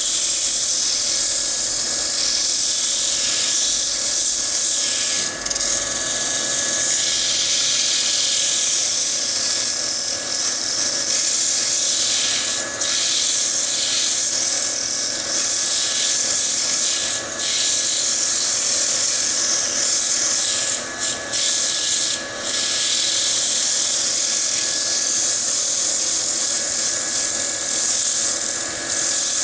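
Sandpaper held against a wooden bowl spinning on a wood lathe, a steady hissing rub over the lathe's motor hum. This is the light sanding between coats of finish. The hiss breaks off briefly several times as the paper lifts off the wood.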